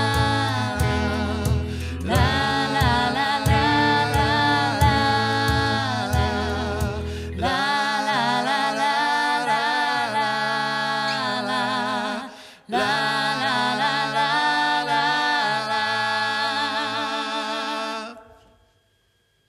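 A live pop band with a woman on lead vocals, playing the closing bars of a song. About halfway through the bass and drums drop out, leaving long held, wavering sung notes, and the song ends shortly before the close.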